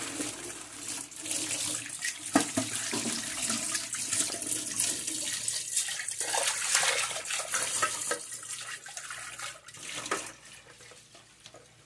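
Kitchen tap running into a stainless steel sink as pots are rinsed under the stream, the water splashing off them, with one sharp knock about two seconds in. The water sound gets quieter near the end.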